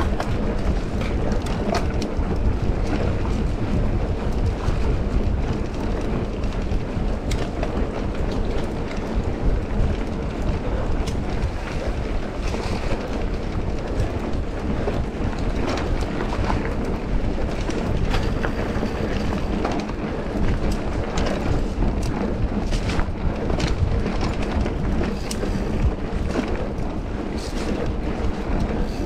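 An off-road vehicle running over a rough trail: steady engine sound mixed with heavy wind rumble on the microphone, with frequent short knocks and rattles throughout.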